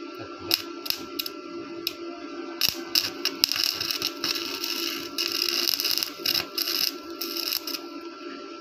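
Stick arc welding: the electrode crackles and sputters in short strikes at first, then in longer runs from about three and a half seconds in, over a steady electrical hum.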